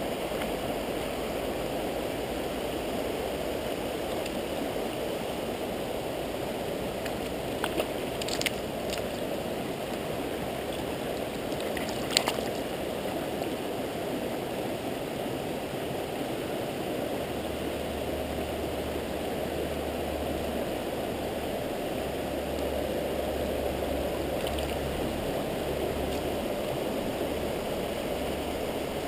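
A mountain stream rushing steadily over rocks and riffles. A few brief sharp clicks stand out, two about eight seconds in and a louder one about twelve seconds in.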